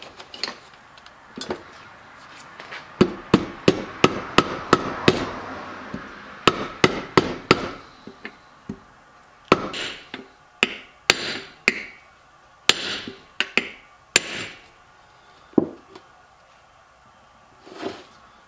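Sharp metal-on-metal taps and knocks on a small-engine crankcase during reassembly: a quick run of about four strikes a second in the first half, then single strikes a second or so apart.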